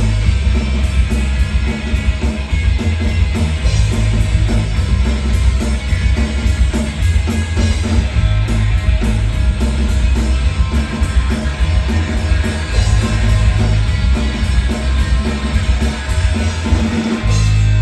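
A rock band playing an instrumental passage without singing: electric guitar over a drum kit keeping a steady beat.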